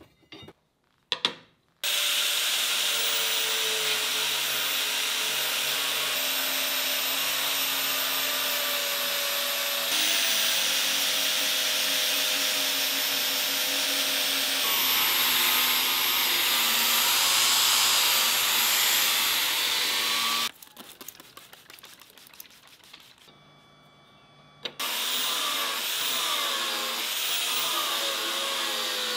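Angle grinder grinding a steel blade segment, running steadily with its pitch wavering under load. It stops for a few seconds about two-thirds of the way through, leaving a few light knocks, then starts grinding again. A few short metal clicks come just before it first starts.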